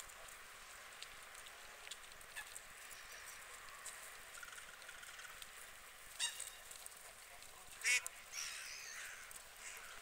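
Goose honking: two short honks, the second louder, followed by a few softer calls, over a faint steady hiss.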